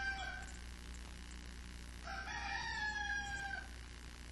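A rooster crowing. The tail of one crow ends just as the sound begins, and a full crow of about a second and a half starts about two seconds in, both over a faint low hum.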